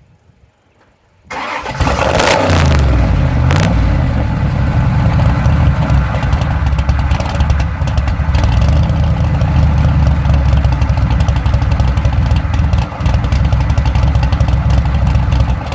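A car engine starting about a second in, its revs rising briefly and then settling, after which it runs loud and steady.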